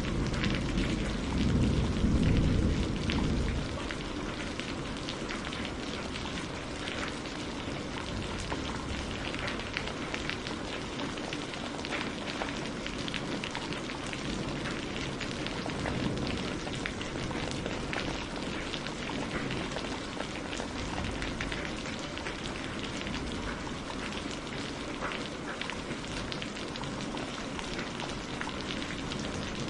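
Steady rain falling, a dense even patter of drops. A low rumble of thunder dies away in the first few seconds.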